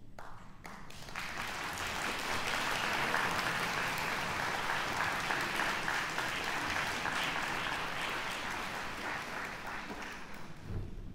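Audience applauding in a concert hall, swelling up about a second in and dying away near the end, as the soloist and conductor come on stage.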